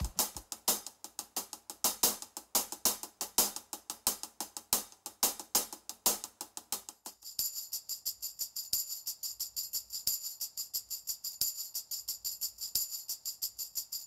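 Hi-hat struck with a stick in a steady, quick pattern, played alone. About seven seconds in, a hand-held tambourine takes over, shaken in a steady rhythm with bright, continuous jingles.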